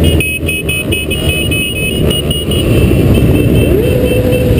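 Several motorcycle engines running at low speed in a riding group, heard from a helmet-mounted camera with a low wind rumble. About four seconds in, one engine's pitch rises and then holds. A rapid high beeping pulses in the background.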